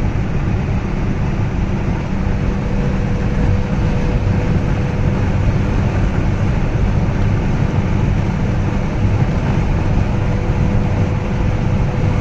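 Steady low rumble of a motor vehicle in motion, heard from inside, with a faint steady hum above it.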